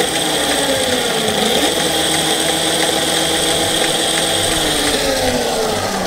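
QS mid-drive electric motor running under throttle, driving the new chain and spinning the rear wheel of the bike on its stand. It makes a smooth, steady electric whine with chain noise, its pitch shifting slightly as the throttle varies.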